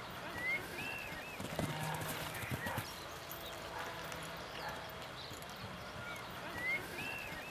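Hoofbeats of a pony cantering on grass turf, soft uneven thuds.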